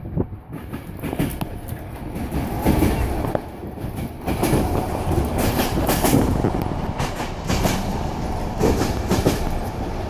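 Passenger train running on the rails, heard from inside the carriage: a steady rumble with the wheels knocking over rail joints, louder from about four seconds in.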